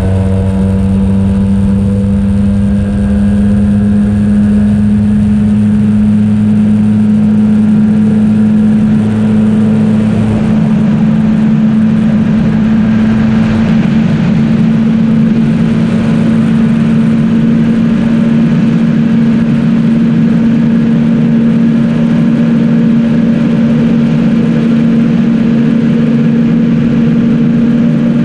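Yamaha T-MAX 530 maxi-scooter's parallel-twin engine pulling hard under full-throttle acceleration from about 90 to 165 km/h, its note holding steady and rising only slowly in pitch as the automatic belt transmission keeps the revs high.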